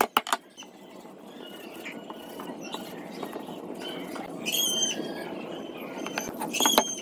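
A few quick taps at the very start, likely a hammer on the wooden frame, then a steady low noise with two short, high chirps, one about halfway and one near the end.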